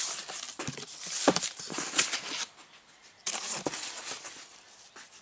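A razor blade cutting open a cardboard box: a run of short scratchy slicing strokes and knocks on the cardboard, pausing briefly about halfway, then starting again.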